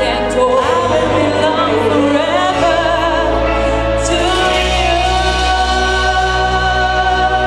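Music with singing: voices with vibrato over sustained accompaniment, settling into a long held note about halfway through.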